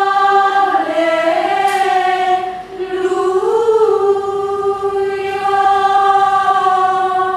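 Women's choir singing Gregorian chant a cappella in unison, in long held notes, with a short break for breath about two and a half seconds in. The last note is held and starts to fade right at the end.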